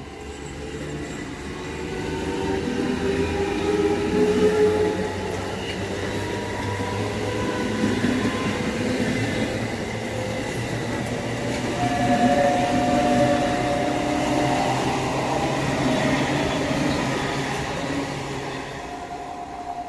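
A train passing close by on the rails: a steady rumble of wheels that builds over the first few seconds, stays loud, and fades near the end, with thin metallic tones ringing over it.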